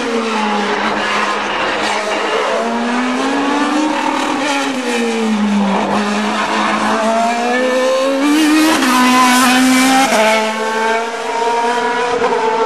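Single-seater race car's engine revving hard under full-throttle acceleration uphill. Its pitch climbs and falls repeatedly through gear changes, with a sudden drop about nine seconds in.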